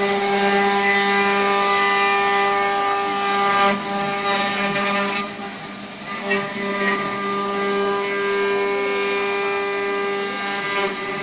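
Multi-spindle 4-axis CNC wood router running, its eight spindles giving a steady whine over the noise of the bits cutting wood. It dips slightly in loudness about halfway through.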